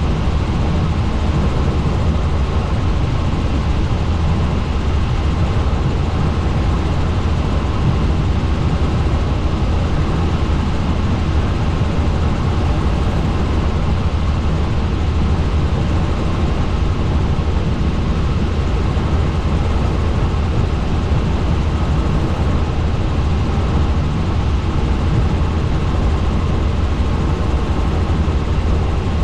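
Helicopter in steady flight: a constant low rotor and engine drone with a noisy hiss over it, unchanging throughout.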